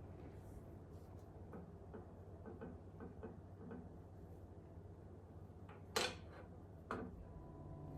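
Quiet room tone with a few faint soft taps, then two sharp clicks about a second apart near the end.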